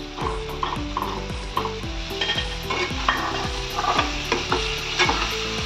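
Spice masala sizzling in a nonstick wok while a spatula stirs boiled eggs and potatoes through it, with irregular scrapes and knocks against the pan.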